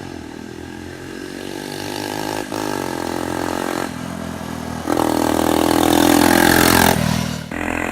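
1984 Honda ATC70's small single-cylinder four-stroke engine being ridden, its pitch rising and falling with the throttle. It grows louder, runs hardest from about five to seven seconds in, then briefly drops off near the end.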